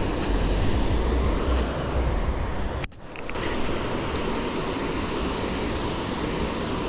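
Wind buffeting the microphone: a steady hiss with a low rumble, broken by a sharp click about three seconds in, after which the rumble drops away for a moment before the hiss returns.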